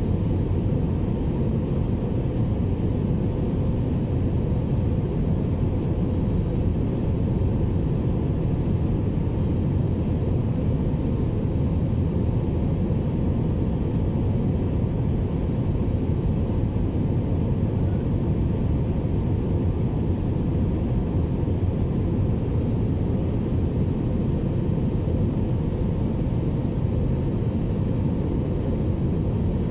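Steady low roar of a jet airliner's engines and rushing air, heard from inside the passenger cabin as the plane descends to land.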